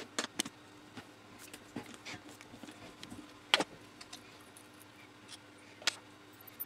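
Scattered sharp metal clicks and clinks of a hex driver working the screws on the head of a Becker rotary-vane vacuum pump as it is taken apart, the loudest about three and a half and six seconds in. A faint steady hum lies underneath.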